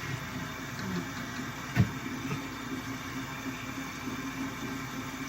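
A single sharp knock a little under two seconds in, over a steady low background hum.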